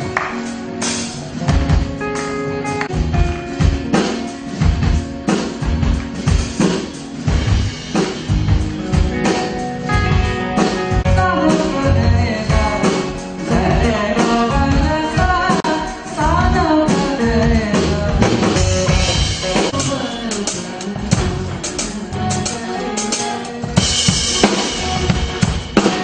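A band playing: a drum kit beating steadily under electric guitar and bass, with cymbals rising near the end.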